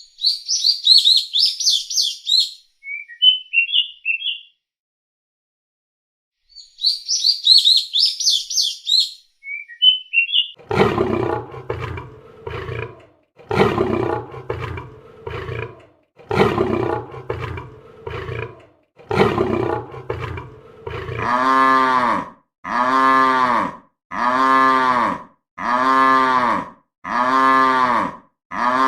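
A run of animal calls. High bird chirping comes twice, with a pause between. Then comes a series of rough roars, and near the end evenly repeated pitched calls about once a second.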